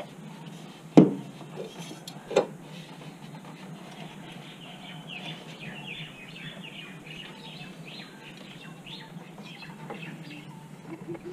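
Two sharp knocks, about a second and a half apart, from parts being worked by hand in a car's engine bay while an intake pipe is fitted. These are followed by small birds chirping in quick repeated calls for several seconds.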